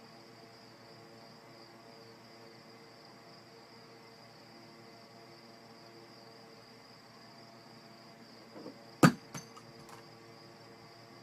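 A steady faint high-pitched whine. About nine seconds in comes one sharp knock, with a few lighter taps just before and after it.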